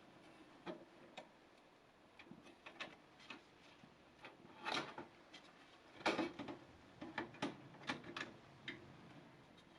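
Irregular small clicks and knocks of hard plastic and metal parts being handled as a graphics card is taken out of a desktop PC, with a few louder knocks about halfway through.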